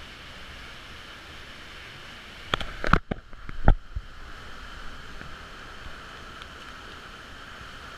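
Steady rush of water in a canyon stream, with a few loud knocks and bumps about two and a half to four seconds in, while the hiss of the water drops away for about a second.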